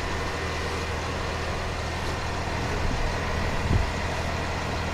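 Engine idling steadily with a low, even drone, and a brief low thump between three and four seconds in.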